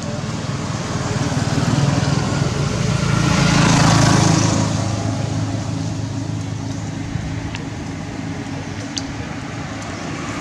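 A motor vehicle's engine passing on the road: its hum grows louder, is loudest about four seconds in, then fades away.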